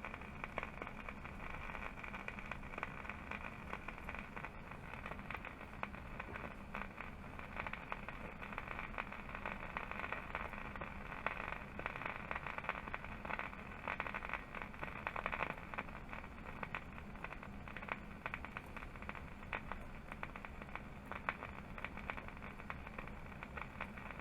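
Crackling static and hiss from the speaker of a 1953 Philco 53-956 AM/FM radio, powered up after a recap but picking up no station: the set is still not working properly.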